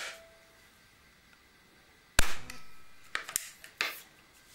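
Webley Nemesis single-stroke pneumatic air pistol firing once about two seconds in, a single sharp crack. It is followed by a few sharp mechanical clicks as the top cocking lever is opened again for the next pump stroke.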